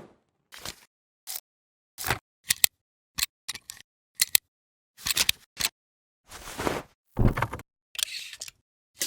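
Film burn transition sound effect: irregular sharp camera-shutter-like clicks and snaps, each cut off into silence. In the second half come a few longer noisy swells.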